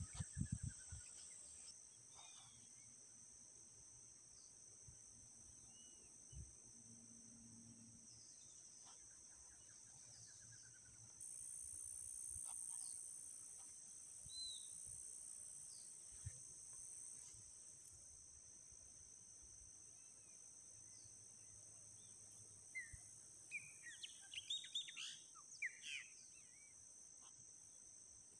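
Faint outdoor ambience: a steady high-pitched drone of insects, with scattered short bird chirps and a quick flurry of bird calls near the end.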